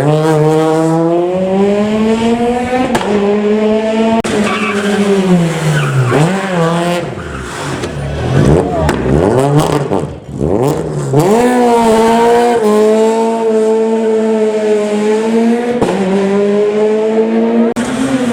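Rally car engine at full throttle on a gravel special stage, revs rising and falling as it changes gear. About halfway through the revs drop and the pitch jumps up and down quickly as it brakes and downshifts, then it pulls hard again and holds high revs.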